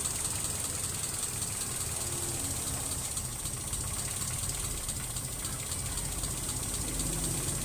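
Mitsubishi 4G33 inline-four engine idling steadily, with a steady high hiss alongside. The idle is rough, caused by a vacuum leak from a wrong hose connection at the intake manifold.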